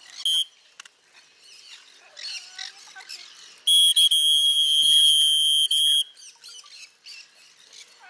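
A flock of conures chirping and squawking while they feed. The loudest sound is a steady, piercing high-pitched tone that holds for about two seconds around the middle, with a short blip of the same tone right at the start.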